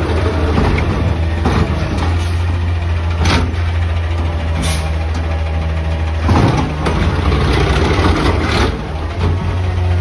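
McNeilus automated side-loader garbage truck running steadily, with scattered clanks and knocks as its mechanical arm reaches out and grips a wheeled trash cart. The sound gets louder for a moment about six seconds in, as the arm closes on the cart.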